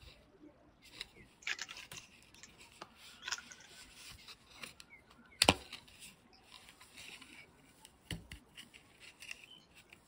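Faint rubbing and scattered small clicks of gloved fingers handling a hard-plastic minimalist card wallet, with one sharper click about five and a half seconds in.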